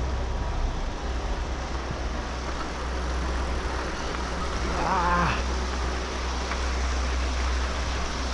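Wind rumbling on the microphone and steady trail noise while riding a bicycle on a dirt track, with one short wavering call about five seconds in.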